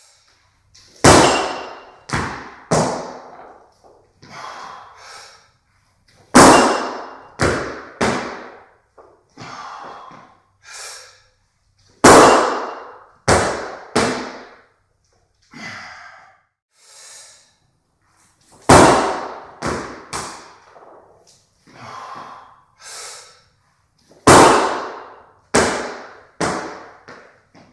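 Barbell jerk reps with a 48 kg bar and bumper plates: loud clanks of the bar and plates and stomps of feet on a wooden platform, in five clusters of about three, one cluster every six seconds, each clank ringing out briefly. Breathing between the reps.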